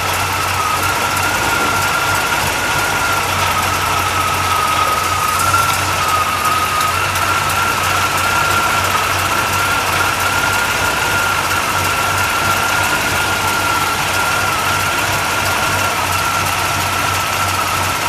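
A 327 small-block V8 idling steadily in a 1957 Chevrolet station wagon, with a steady high-pitched whine over the engine note.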